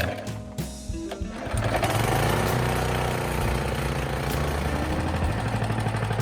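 Motor cultivator's small engine catching about a second and a half in, briefly rising in pitch, then running steadily with a fast even beat after its clogged carburetor has been cleared. Background music plays under it.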